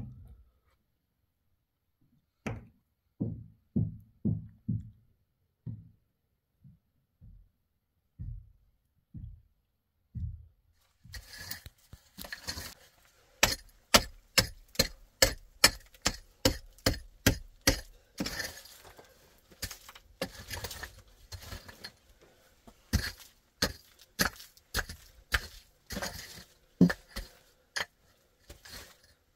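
Short-handled hoe chopping into stony earth, with sharp strikes and stones clinking about two times a second. The strikes follow a stretch of scattered dull low thuds and begin about ten seconds in.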